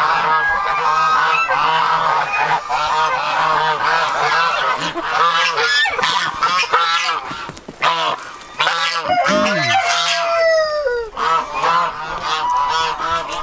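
A flock of white domestic geese honking, many calls overlapping with hardly a break.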